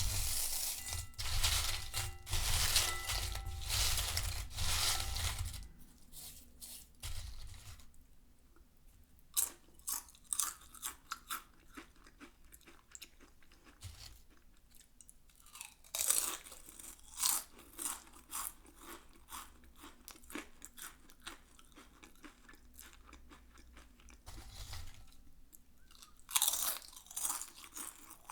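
Lay's potato chips rustling and crackling in a bowl: a dense stretch of crackling at first, then scattered crackles with louder spells in the middle and near the end.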